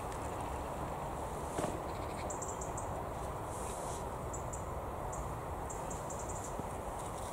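Steady outdoor background noise with a low rumble, with short runs of quick high ticks and chirps a few times and one sharp click about one and a half seconds in.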